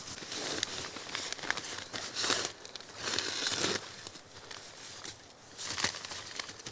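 Tipi tent fabric and gear rustling and crinkling in irregular bursts, with scattered small clicks, as the tent is being pitched.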